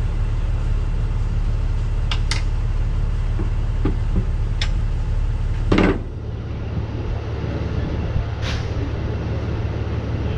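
A steady low engine drone with a few sharp knocks and clinks. The loudest knock comes about six seconds in, and the low drone drops away after it.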